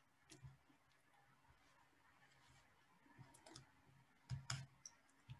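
Faint computer mouse clicks over near-silent room tone: a few short, separate clicks, the loudest pair about four and a half seconds in.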